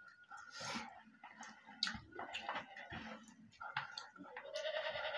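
Close-up eating sounds from people eating rice and chicken curry with their hands: mouths chewing and smacking, with scattered wet clicks and a longer, louder sound near the end.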